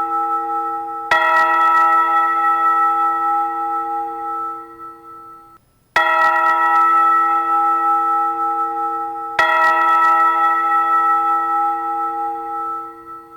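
A church bell struck three times, each stroke ringing on with a long fading hum of overtones. The ringing cuts off abruptly twice, once before the second stroke and once near the end.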